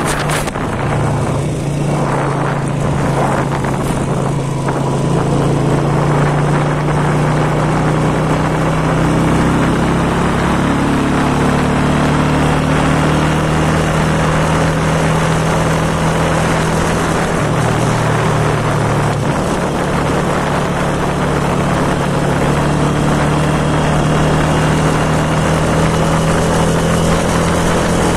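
Motorcycle engine running steadily while riding, with wind and road noise. The engine note drops for a second or two about two-thirds of the way through, then picks up again.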